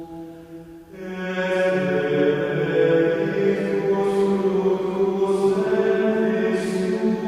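Background music: slow, chant-like vocal music of long held sung notes, dipping briefly and then swelling into a new phrase about a second in.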